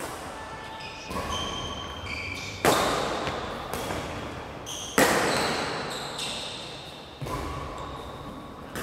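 Badminton rackets striking a shuttlecock in a doubles rally, four sharp hits about two seconds apart, each echoing away through the hall. Short squeaks of shoes on the court come in between.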